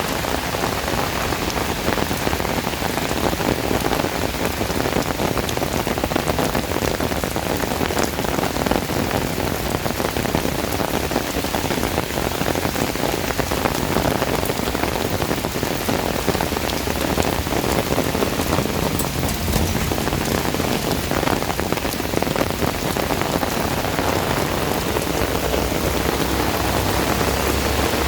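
Heavy tropical rain pouring steadily onto hard surfaces, a dense, even hiss dotted with the patter of many drops.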